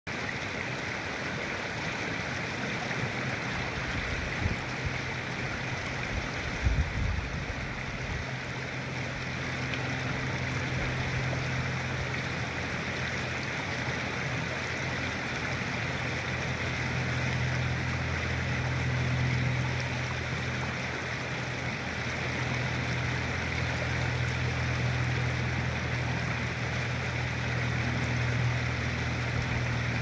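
Shallow creek water rippling and rushing over a rock ledge, a steady wash of water noise. Beneath it runs a low steady hum that grows stronger from about ten seconds in, with a brief low thump about seven seconds in.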